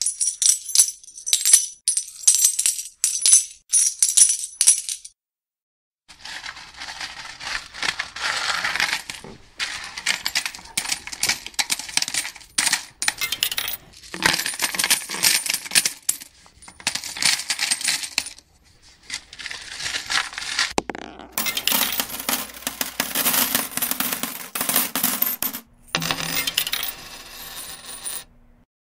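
Coins clinking and jingling: a quick run of ringing metallic clinks for about five seconds, then, after a brief gap, a series of bursts of coins rattling and jingling, each a second or two long with short silences between.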